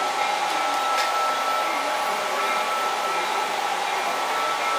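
Steady whirring of H0 model trains running on the layout's track, with a faint steady hum and one short click about a second in.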